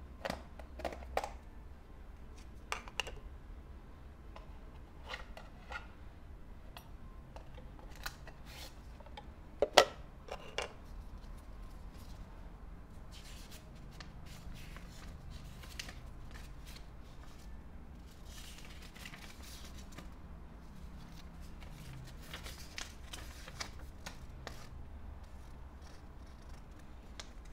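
Close-up handling sounds: a few sharp clicks and knocks as a small plastic stove case is opened and the stove handled, the loudest about ten seconds in, then soft paper rustling as a folded instruction leaflet is opened out.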